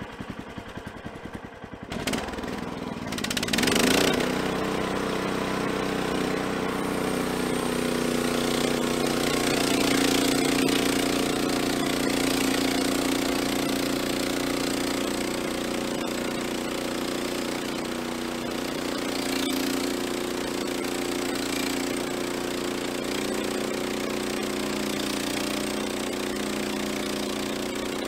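Gas engine of an EZ Boardwalk Jr band sawmill starting about two seconds in, revving up about two seconds later, then running steadily.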